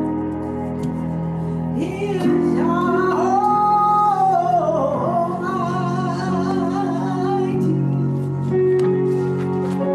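Church praise team singing a slow worship song over sustained instrumental accompaniment, with a long, wavering sung phrase in the middle.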